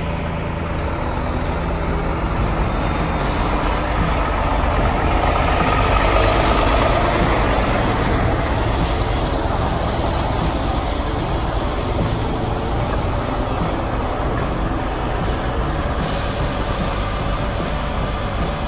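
Peterbilt 389 semi tractor hauling a piggybacked set of new trucks, its diesel engine running under load as the rig drives by. The sound swells to its loudest about six seconds in, then holds steady.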